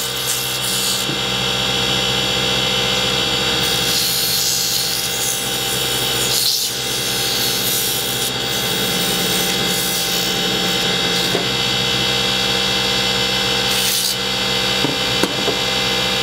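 Wood lathe running steadily, with abrasive paper pressed against the spinning wood-and-Alumilite bottle-stopper blank: a rubbing sound that swells and fades over several passes above the even motor hum.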